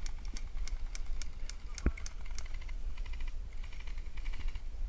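Airsoft rifles firing: scattered single shots in the first two seconds, then two rapid full-auto bursts in the second half, over a steady low wind rumble on the microphone.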